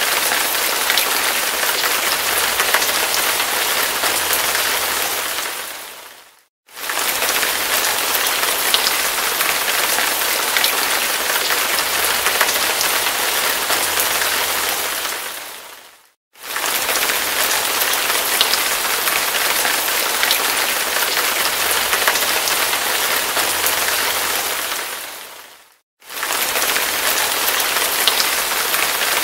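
Heavy rain falling: a dense, steady hiss of downpour with fine drop ticks through it. The sound fades out to a moment of silence and comes straight back three times, about every ten seconds.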